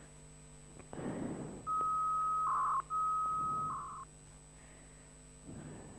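Two electronic beeps a little over a second apart, each a steady high tone that ends in a short, louder, lower blip. Behind them are a steady low electrical hum and a few soft breathy puffs.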